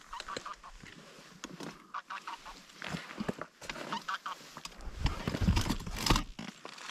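Geese honking: a string of short, repeated honks. Near the end there is louder rustling and handling noise as the hunters move.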